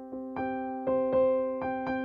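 Background music: a piano or electric piano playing a gentle repeating pattern of notes at an even pace.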